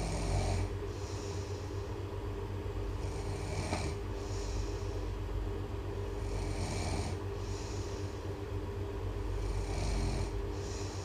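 A person snoring steadily, about one breath every three seconds, each with a hissing rush of air. A steady low drone runs underneath.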